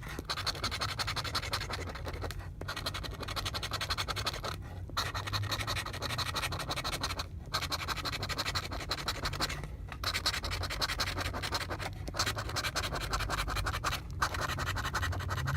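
Scratch-off lottery ticket being scratched: rapid back-and-forth scraping strokes on the ticket's coating, in runs broken by short pauses every couple of seconds, as the remaining prize spots are uncovered.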